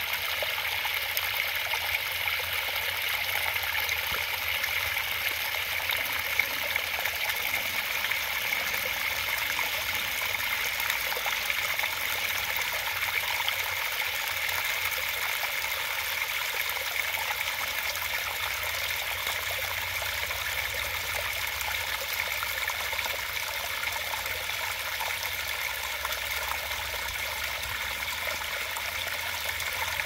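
Small waterfall: thin streams of water trickling and splashing down stone ledges in a steady, even rush that is mostly high and bright, with almost no low rumble.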